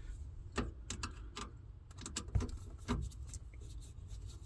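Irregular light clicks and taps from hand work with a screw and screwdriver while a small speaker box is fitted under the dashboard.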